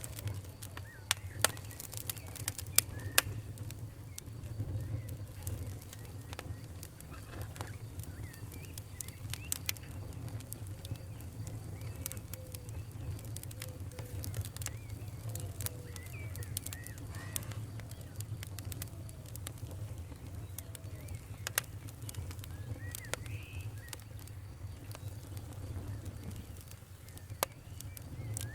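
Wood fire crackling in a fireplace: a steady low rumble of flames with scattered sharp pops and snaps, several louder pops close together in the first few seconds.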